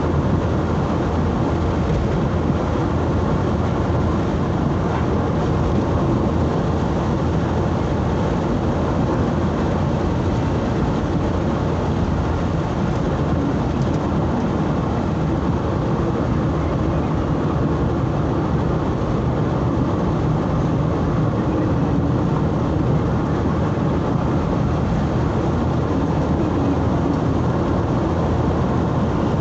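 Steady engine and road noise of a vehicle driving.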